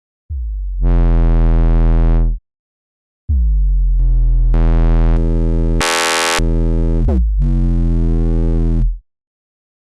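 Synthesizer bass patch, a 'white noise fog bass', played as two held notes with a gap of silence between them. The first is short. The second lasts about six seconds and changes tone as it goes, turning bright in the middle and wavering near the end. Each note starts with a quick downward pitch drop.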